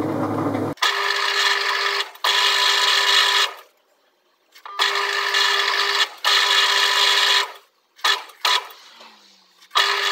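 Lathe screw-cutting a left-hand 8 tpi Acme thread on a steel chuck-screw blank: first a low running hum, then the threading tool cutting with a steady pitched whine. The whine comes in several stretches of one to one and a half seconds, each stopping suddenly.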